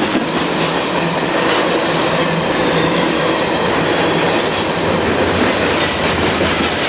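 CSX freight train rolling steadily past, with its wheels clicking over the rail joints.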